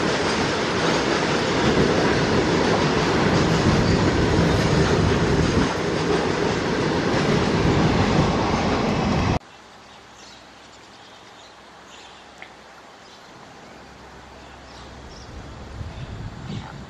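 Freight wagons rolling past close by, a steady loud rumble and clatter of wheels on rail that cuts off abruptly about nine seconds in. Then a quieter stretch, with the sound of an approaching EMD WDG-4 diesel locomotive's freight train rising near the end.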